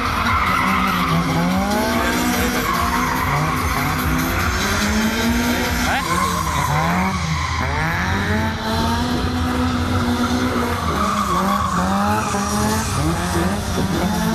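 Drift cars sliding on tarmac, engines revving up and down over and over, with tyres squealing.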